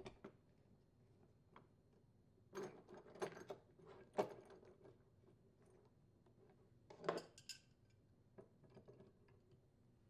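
Faint clicks and light clinks of the ice crusher blades and bushing on the auger shaft being handled as the bushing is threaded on, in short clusters about three to four seconds in and again around seven seconds in.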